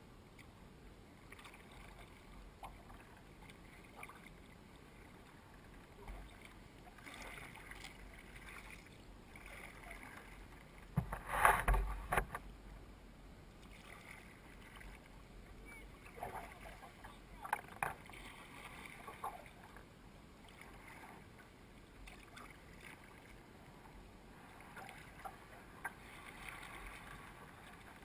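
Quiet paddling of a sea kayak underway: soft, intermittent swishes and splashes of paddle strokes and water around the hull. A louder splash with a clatter comes near the middle.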